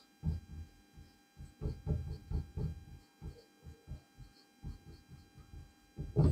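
Marker writing on a wall-mounted whiteboard: a run of soft, irregular low thuds and scrapes as letters are written, with a louder knock near the end. A faint steady electrical hum lies underneath.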